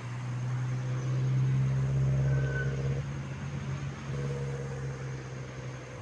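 Large tour bus's diesel engine running as it passes close, a steady low drone that swells about a second in, is loudest around two seconds and then eases off.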